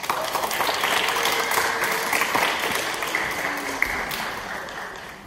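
Audience applauding, starting abruptly and dying away near the end.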